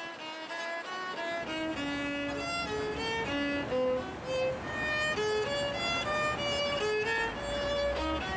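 Solo violin playing a melody of held single notes, over a low rumble that grows louder near the end.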